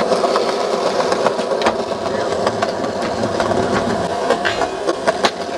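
Skateboard wheels rolling over rough pavement, a steady rumble with scattered sharp clacks of the board; a few seconds in the deck slides along a metal rail, with a cluster of knocks.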